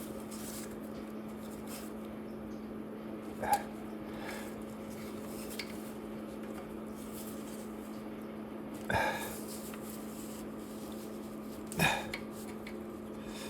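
Three short metallic clinks of a wrench or socket against the engine, a few seconds apart, while the tool works on an exhaust manifold nut. A steady low hum runs underneath.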